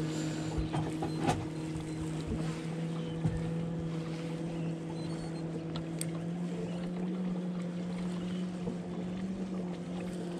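A boat engine hums steadily, its pitch creeping up slightly about six seconds in and easing back near the end. A few faint clicks sound over it.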